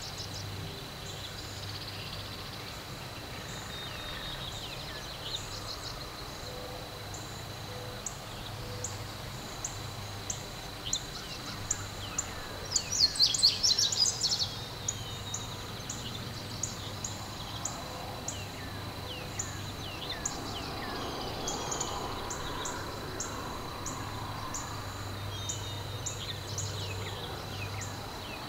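Small birds chirping and calling, with many short high chirps repeating about twice a second and some down-slurred calls, and a loud flurry of chirps about halfway through. A steady high tone and a low hum run underneath.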